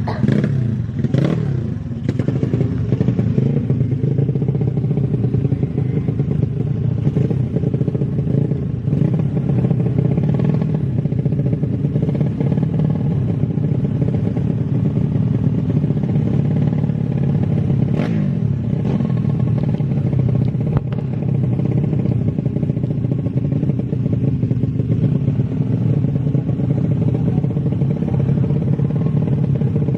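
Small underbone motorcycle engine running at a fairly steady speed, with a few knocks and clatters over it, including a sharp knock about eighteen seconds in.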